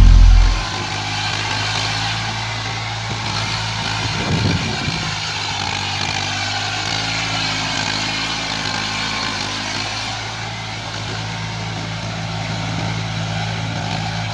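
Eicher 480 tractor's diesel engine running steadily under load while it pulls a rotary tiller through wet paddy mud. A very loud low rumble at the start drops away within the first second.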